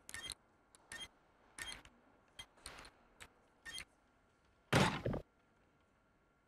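Light, irregular clicks and taps of a toy robot's parts being fiddled with during a repair, each with a slight ring, then a single louder clunk a little before five seconds in.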